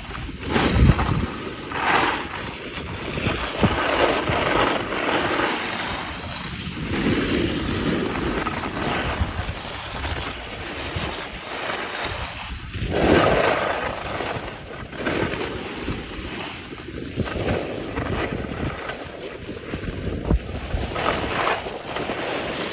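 Wind rushing over the phone microphone while skiing downhill, mixed with the hiss and scrape of skis on packed, groomed snow. The noise swells and fades in waves, with heavy buffeting gusts about a second in and again around halfway.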